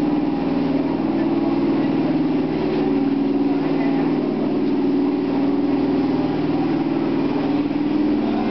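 HÉV suburban electric train standing at the platform, its onboard equipment giving a steady low hum with several tones.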